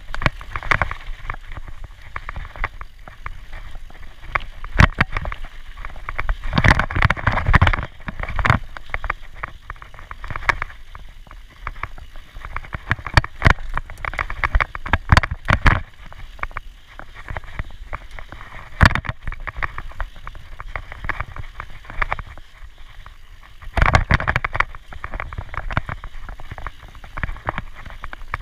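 Mountain bike riding fast down a dry dirt singletrack: a steady rush of tyre and air noise with frequent sharp knocks and rattles from the bike over bumps, heavier clusters of them several times.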